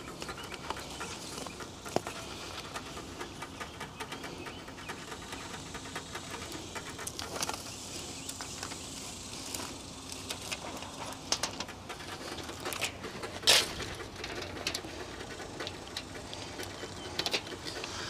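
Irregular crinkles, clicks and snaps from a roll of tape being unrolled, torn and pressed onto foam pipe insulation, with the sharpest snap about two-thirds of the way through.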